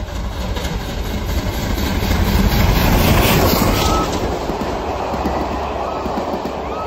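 Bulleid Battle of Britain class steam locomotive 34067 Tangmere running through a station at speed, loudest about three seconds in as the engine passes close. Its train of Pullman coaches follows, rumbling steadily over the rails.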